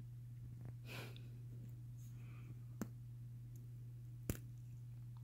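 A tabby cat nosing at pieces of graham cracker: a soft sniff about a second in, then two sharp clicks, the second louder, over a steady low hum.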